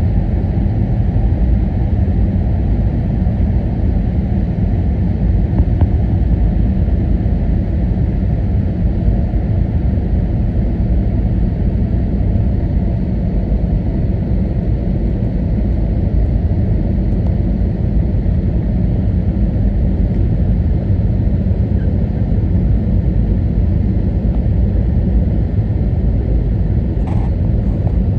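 Airbus A321neo cabin noise in flight: a steady, loud low rumble of airflow and engines.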